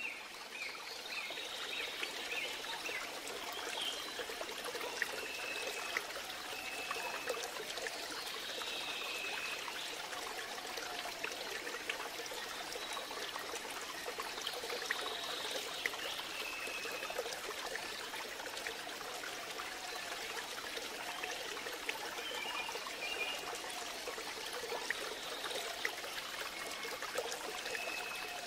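A steady trickle of flowing stream water, with faint short high-pitched calls recurring every few seconds above it.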